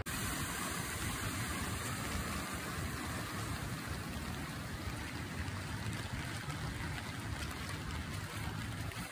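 Steady noise of heavy rain and floodwater running along a street.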